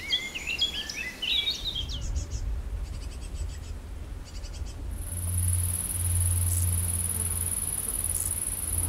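Nature sounds: birds singing at first, then rhythmic insect chirping from about two seconds in, giving way at about five seconds to a steady high-pitched insect buzz, with a low rumble underneath.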